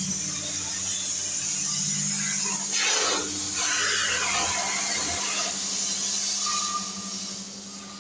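A steady hiss over a low, even hum, with a burst of sliding, squealing noise about three seconds in.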